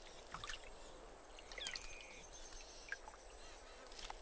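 Faint outdoor background with a few soft clicks and a brief chirp that sweeps up and down about one and a half seconds in.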